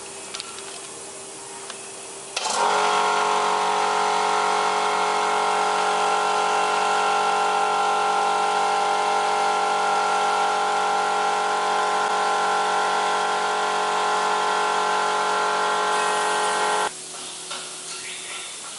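Electric motor of a flexo plate mounting machine running with a steady hum. It switches on about two and a half seconds in and cuts off suddenly near the end.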